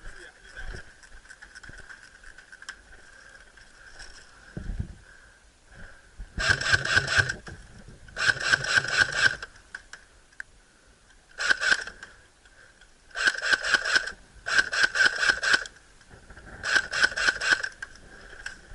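Airsoft gun firing full-auto in six short bursts of rapid clicking, starting about six seconds in, over a faint steady high whine.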